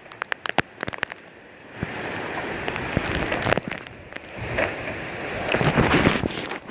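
Rain and gusting wind in a severe thunderstorm. The rush of noise swells and fades, and is strongest near the end. Many sharp taps, from drops or debris hitting close to the microphone, are thickest in the first two seconds.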